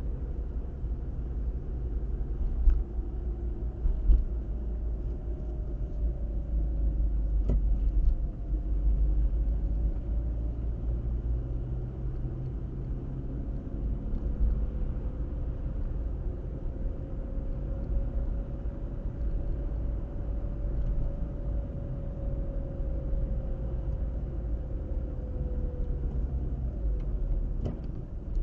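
Car driving along at a steady pace: a low rumble of road and engine noise with a faint tone that drifts slowly up and down in pitch, and a few short knocks.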